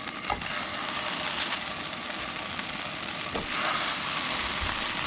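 Tofu sizzling as triangular pieces are laid one by one into a preheated, unoiled nonstick pan, its surface moisture hissing on the hot metal. A few soft taps are heard as pieces are set down.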